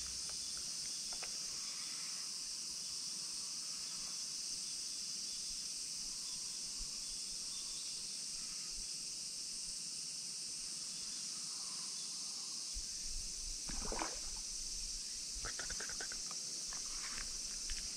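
Steady high-pitched chorus of cicadas, with a brief knock about fourteen seconds in and a few light clicks after it.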